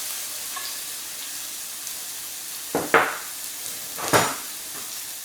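Chopped shallot and bell pepper sizzling in sesame oil in a hot frying pan, with two louder scraping strokes as they are stirred, about three and four seconds in.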